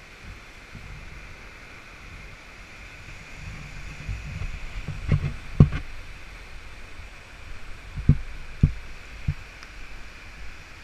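Water rushing steadily through a small dam, with a low rumble on the microphone and several short thumps between about five and nine seconds in, the loudest near the middle.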